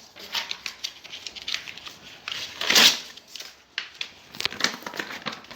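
Books burning in an open fire, crackling with irregular sharp snaps, with a louder rustling burst about three seconds in.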